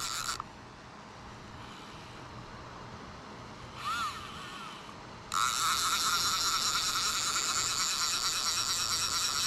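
Fly reel's clicker drag buzzing as a hooked striped bass pulls line off the spool. It stops just after the start, gives a short burst about four seconds in, then runs steadily and loudly from about five seconds in as the fish makes a longer run.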